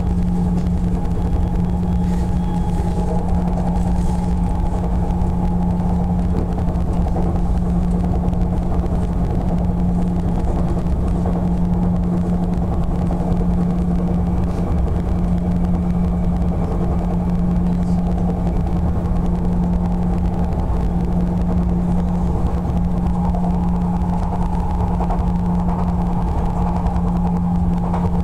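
Interior running sound of an Odakyu 60000 series MSE Romancecar motor car (Toshiba IGBT-VVVF drive, fully enclosed traction motors) travelling steadily: a continuous rumble of wheels on rail with a steady low hum. The level stays even throughout.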